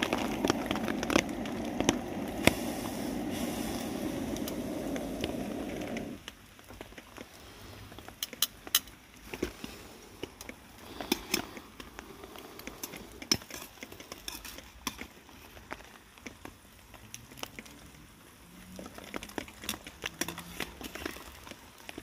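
Hot oil bubbling hard as chips and onion rings deep-fry in a steel pot; the bubbling stops abruptly about six seconds in. After that there are only scattered faint crackles and pops.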